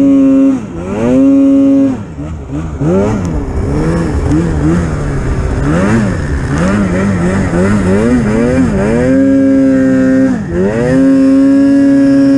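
Polaris Pro-RMK 800 snowmobile's two-stroke twin engine revving under throttle: held high briefly at the start, then several seconds of quick rises and falls, then two longer pulls at high revs near the end.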